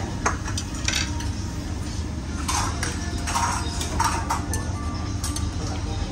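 Chopsticks clinking against ceramic plates and bowls during a meal: a scatter of short, sharp clinks at irregular intervals over a steady low background hum.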